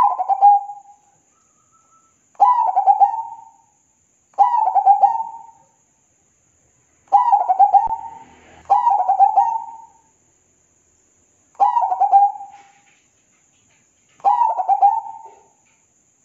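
Zebra dove (perkutut) cooing: seven short phrases, each a quick run of notes lasting about a second, repeated every two to three seconds.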